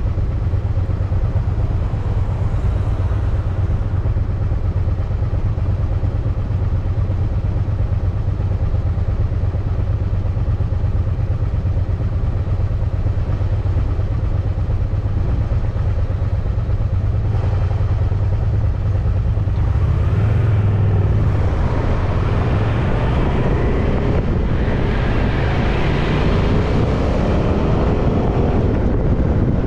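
Steady low rumble of road and wind noise from a moving bicycle. From about twenty seconds in, a motor vehicle's engine note rises and falls alongside it.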